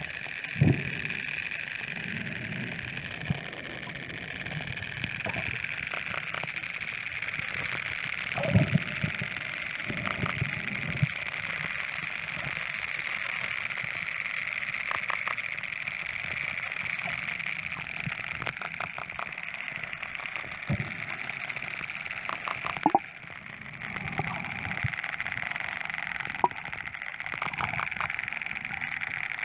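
Dolphins recorded underwater through a phone in a plastic case: repeated short trains of rapid clicks over a steady hiss of sea noise, with a few dull knocks.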